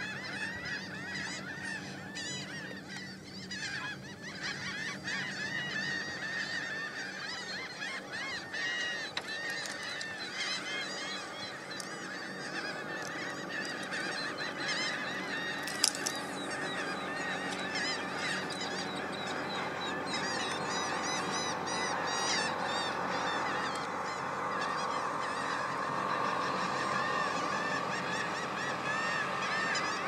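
A dense, continuous chorus of many gulls and terns calling at a nesting colony, the overlapping cries thickening toward the end. A single sharp click about halfway through.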